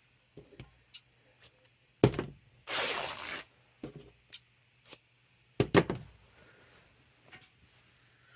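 Craft materials being handled on a desk: light taps and clicks, a loud thud about two seconds in, a brief scraping rustle just after it, and a second thud about halfway through.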